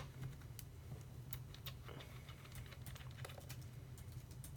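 Faint scattered clicks and taps of a small screwdriver and loose parts on a laptop as a display bracket and its screws are removed, with a sharp click right at the start, over a low steady hum.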